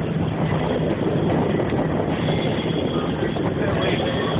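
Boat engine running steadily under way, with wind buffeting the phone's microphone.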